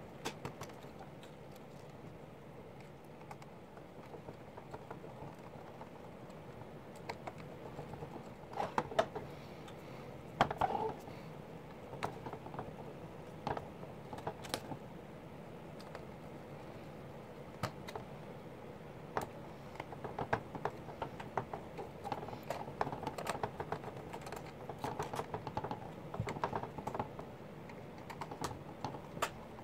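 Small plastic clicks, taps and rattles of hands fitting plastic motor covers onto the arms of a SYMA X8C quadcopter's plastic frame. The clicks come irregularly, with a louder cluster about nine to eleven seconds in.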